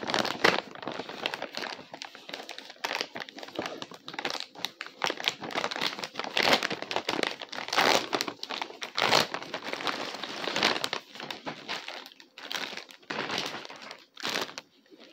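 Plastic packaging crinkling and rustling in irregular bursts as it is handled and opened by hand.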